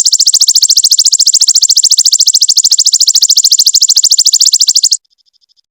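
A songbird's rapid high-pitched trill, the fast 'tembakan' run used in recordings for training songbirds, made of even pulses at about fourteen a second. It cuts off abruptly near the end, followed by a brief faint high note.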